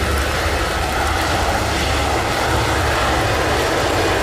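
Airbus A320 jet engines at takeoff power as the airliner accelerates down a wet runway: a steady, loud rumble and roar.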